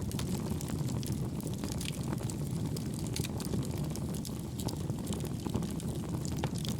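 Wood fire burning in a homemade wood gas stove made from two pail cans: a steady low rumble of the flames with frequent sharp crackles of the wood.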